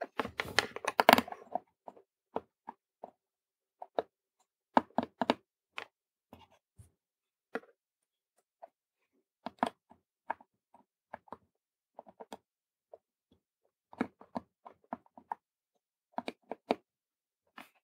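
Small irregular clicks and taps of metal tweezers handling tiny surface-mount resistors against a circuit board and tabletop, with near silence between them. A quick flurry of clicks comes at the start, then isolated ticks every second or so.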